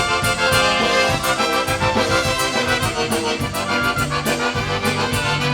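Polka band playing an instrumental passage with a steady beat, no singing.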